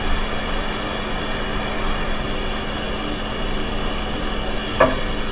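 Quick 861DW hot air rework station blowing steadily, a constant airy hiss with a low hum under it, while the board is heated to solder a PS5 HDMI port. A brief click sounds near the end.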